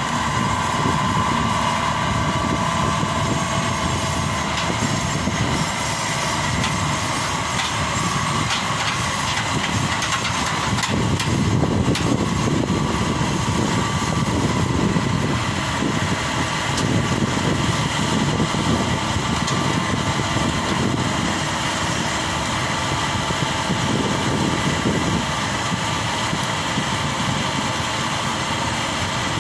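Maxxi Bimo 102 crawler combine harvester's diesel engine running steadily under load as the machine crawls on its tracks up loading ramps onto a truck bed.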